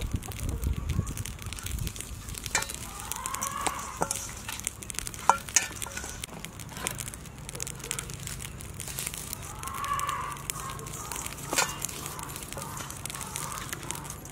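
Hands rubbing coarse salt into the skin of a whole raw chicken in a steel bowl: irregular gritty crackling with scattered sharp clicks.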